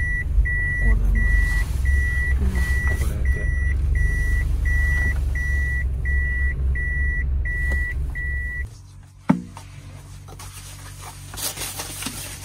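Toyota Hiace camper van's reverse warning beeper sounding while the van backs into a parking spot, a steady high beep about twice a second over the low rumble of the van. About nine seconds in, the beeping and the rumble stop together, followed by a single sharp click.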